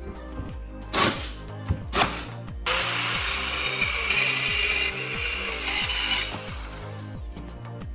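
Two sharp shots about a second apart from a nail gun fastening the stair board, then a power tool runs with a high whine for about three and a half seconds and winds down.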